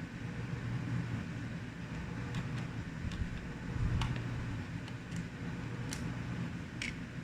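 Small sharp clicks and taps of a screwdriver and screws against a laptop's plastic case, about six of them spread through the middle and end, over a steady low hum.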